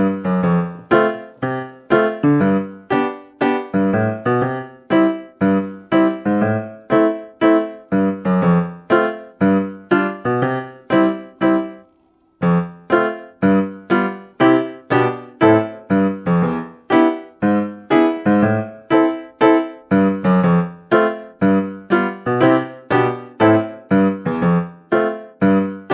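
Background music on a piano-like keyboard: a steady run of short notes, about two to three a second, with a brief stop about twelve seconds in.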